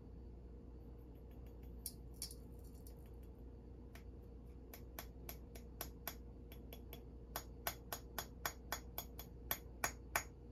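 Light, sharp clicking taps that come quicker and louder in the second half, about three a second near the end: a small container of gold being tapped to shake the flakes out onto a scale.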